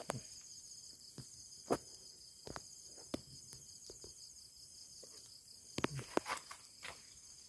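Steady chirring of crickets and other insects, with scattered sharp clicks and knocks, several close together about six seconds in.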